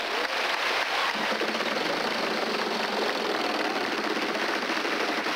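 Wheel of Fortune prize wheel spinning, its pointer flapper clicking rapidly against the pegs around the rim.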